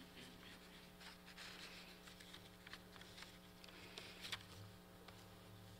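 Near silence: room tone with a steady low hum and a few faint clicks and rustles, one slightly sharper click about four seconds in.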